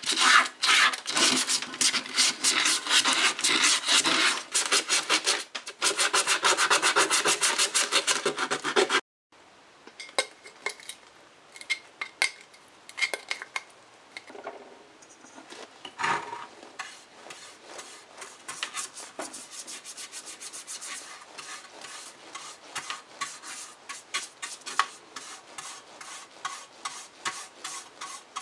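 Fast back-and-forth hand rubbing on a metal sandwich-toaster plate, polishing it with metal polish cream, which stops suddenly about nine seconds in. Then a paint tin is handled with one low knock, and a bristle brush is stroked softly over the metal plate, laying on heat-resistant paint.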